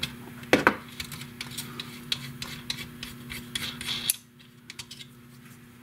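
Small metal camera parts being worked loose with a spanner wrench: clicks and scraping of a screwed retaining ring coming off the top plate of a Pentax K1000 film SLR. A couple of sharp clicks about half a second in, a busy run of small clicks and rubs, then quieter handling after about four seconds.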